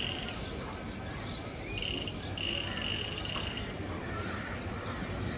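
An insect trilling in runs of one steady high note, broken by short gaps, with a few scattered bird chirps over low background noise.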